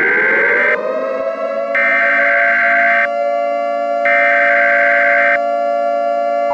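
Civil defense warning siren holding a steady wail after winding up. A higher, shrill tone cuts in and out over it three times, about a second on and a second off.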